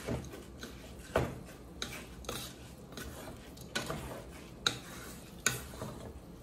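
Wooden spatula stirring uncooked rice grains and spices in a nonstick pot, a dry scraping broken by several uneven knocks of the spatula against the pot.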